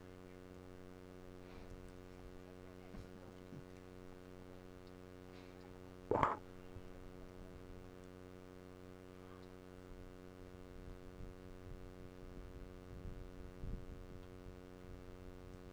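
Steady electrical hum, a stack of even tones, with one brief sharp sound about six seconds in.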